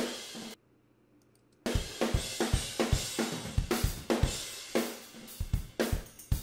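Playback of a raw, unprocessed pop punk drum kit recording: kick, snare and cymbal hits in quick succession. Playback stops about half a second in and starts again a second later.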